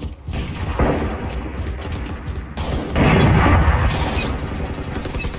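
Shooter-game audio: gunfire and crashing impacts over game music, with a heavy boom about three seconds in.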